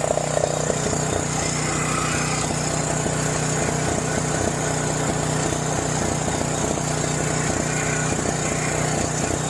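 John Deere 6200-watt portable generator's engine running steadily on half choke, its old carburetor not keeping up with the engine.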